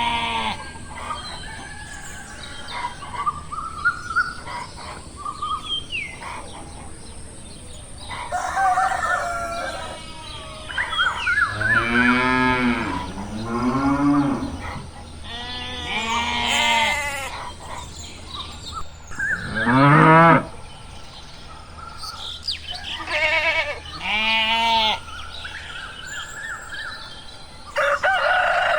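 Cows mooing several times in long, arching calls, with bird chirps in between.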